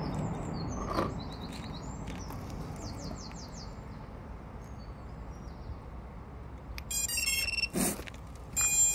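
Quiet outdoor background with a few faint bird chirps, then, near the end, two short runs of high electronic beep tones from the FPV quadcopter and its radio as its LiPo battery is connected, with a sharp click between them.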